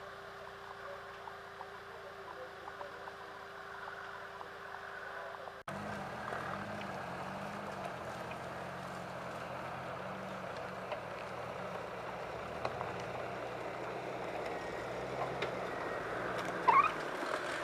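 Land Rover Defender engine running at low revs as it crawls off-road over rough ground, the engine note rising and falling with the throttle. A brief, sharp, high sound stands out near the end.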